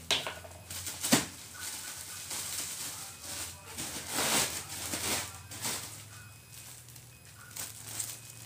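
Clear plastic bag rustling and crinkling as it is handled and squeezed around a load of cotton candy, in irregular bursts.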